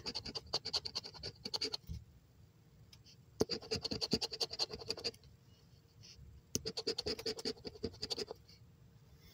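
A handheld scratcher tool scraping the coating off a paper scratch-off lottery ticket, in three bursts of quick back-and-forth strokes with short pauses between them.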